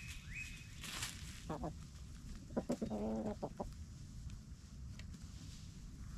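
Chickens clucking as they forage, with short clucks and one longer, drawn-out cluck about three seconds in, over the scratchy rustle of birds raking through dry leaves and compost. A few high rising chirps sound near the start.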